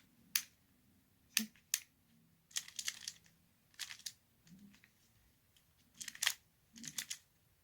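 Plastic clicks and clacks of a Pyraminx (pyramid-shaped twisty puzzle) being handled: scattered single clicks and short rattling runs, the busiest about three seconds in and again around six to seven seconds.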